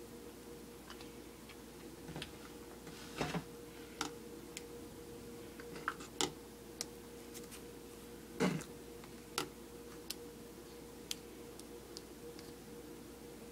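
Scattered light clicks and taps of hands and a knife handling a mayonnaise-covered sandwich on a plate, a few louder knocks among them, over a steady hum.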